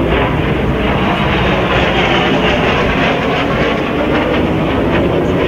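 Jet aircraft flying past, its engine a loud, steady rushing noise that swells slightly in the middle.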